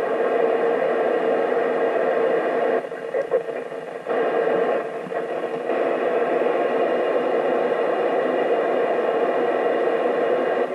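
Yaesu FT-991A transceiver's speaker hissing with FM static on the ISS repeater downlink, no station coming through. The hiss drops twice for about a second, around three and five seconds in.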